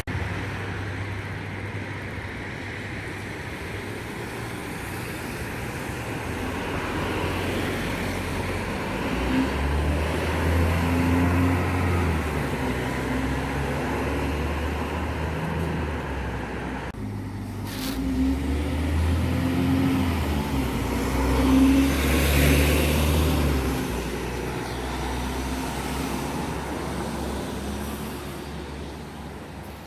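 Road traffic with a large vehicle's engine running, its low engine note building and easing twice as it pulls away and accelerates. There is a brief sharp sound about halfway through.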